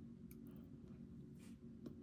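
Near silence over a low steady hum, with a few faint clicks and a brief soft rustle of small lock parts being handled during reassembly.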